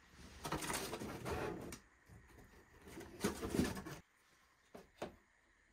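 Handling and scraping of a small plastic bottle of chain oil as its cap and seal are worked at, in two stretches, followed by two small clicks near the end.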